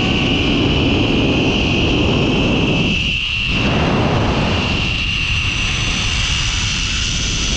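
Zip-line trolley running fast along the steel cable: a steady high whine over heavy wind rush on the microphone, the wind easing briefly about three seconds in.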